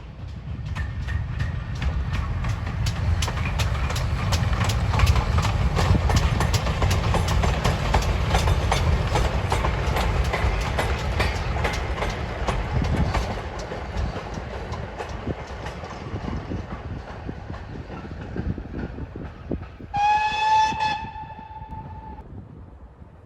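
Steam train passing, its wheels clattering over the rail joints as it grows loud and then fades away. Near the end comes a single steam whistle blast of about two seconds.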